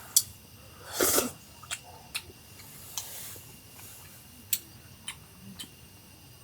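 Mealtime sounds: scattered light clicks and taps of utensils against dishes, with a short hissing rush about a second in.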